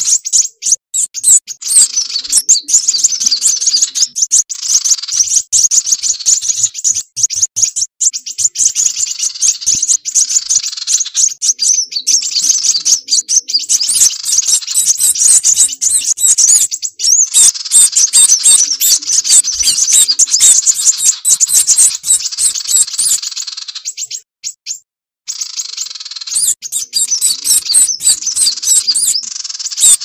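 Lure recording of sunbirds (kolibri wulung) calling, mixed with other small songbirds: dense, rapid, high-pitched chirping with only a brief pause near the end. The sound is thin, with nothing below the high chirps, as on an edited bird-trapping call track.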